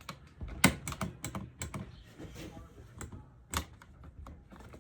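A series of irregular sharp clicks and light knocks, the loudest about two-thirds of a second in: hands handling the chainsaw and tools while the spark plug is out.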